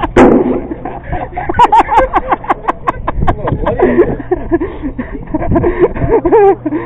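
Indistinct talking among several people, with a sharp thump just as it begins.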